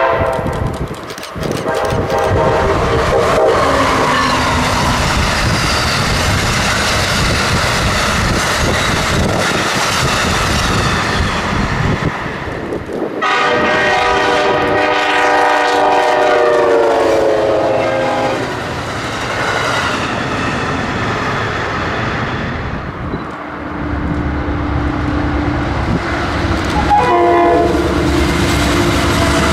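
Train horns in two clips: a multi-tone horn on an approaching Amtrak electric locomotive, then a CTrail Shore Line East diesel locomotive's multi-tone horn sounding a long blast that drops in pitch as it nears and passes. Near the end its passenger coaches rumble and clatter past, with one more short horn blast.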